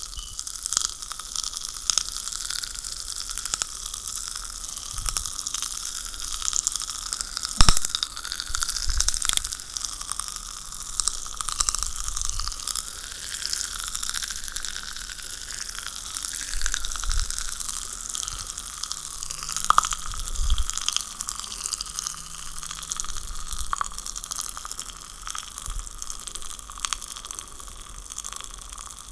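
Popping candy crackling and fizzing: a dense, steady stream of tiny sharp pops with a few louder snaps among them.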